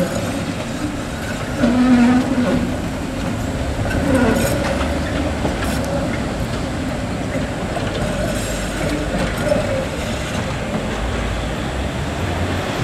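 Street trams running on city track: a coupled pair of trams rolls past and pulls away, with the wheels rumbling on the rails. A brief low whine about two seconds in is the loudest moment, over steady street traffic.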